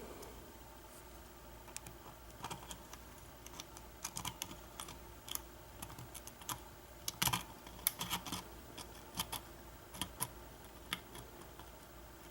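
Lock pick and tension wrench working in a pin-tumbler lock with a Kwikset keyway during single-pin picking: irregular light metallic clicks and ticks, getting busier about a third of the way in.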